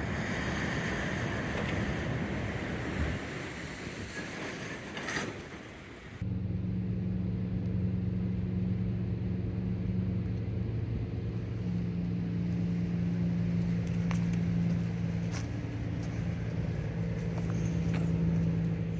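A rough rumble, then, after a sudden change about six seconds in, a steady low engine hum with a few held tones.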